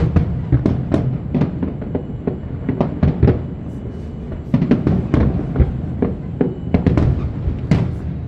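Fireworks bursting in quick, uneven succession: several sharp bangs a second over a continuous low rumble.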